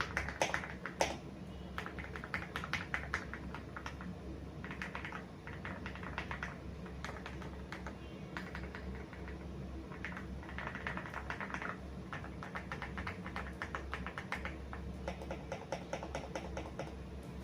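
Fast typing on an Aula F75 mechanical keyboard with Gateron Creamy Yellow switches: rapid runs of key strokes in bursts of a second or two, with short lulls between them.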